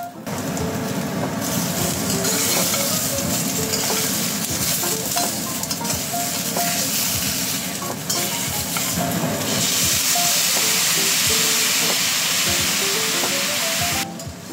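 Pork feet sizzling in a stainless steel wok while a metal spatula stirs and knocks them around the pan, with soft background music underneath. The sizzle dips briefly about halfway and cuts off suddenly near the end.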